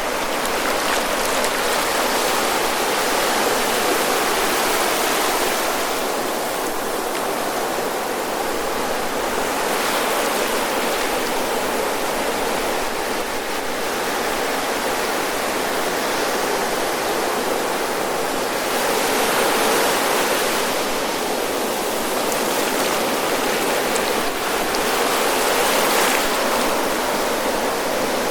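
Surf breaking and washing on a sandy beach: a steady rush of water that swells every few seconds as waves come in, loudest about two-thirds and nine-tenths of the way through.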